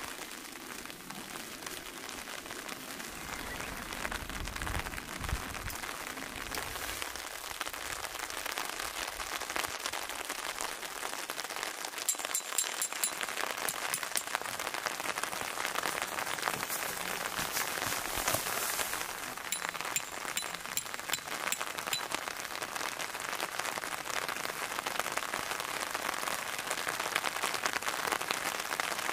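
Steady rain falling, a dense hiss of many small drop ticks that grows a little louder through the stretch.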